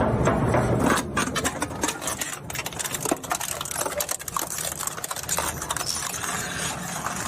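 Plastic shredder machine running: a steady motor hum, then from about a second in a dense, irregular clicking and crackling, typical of plastic pieces being chewed up by the cutters.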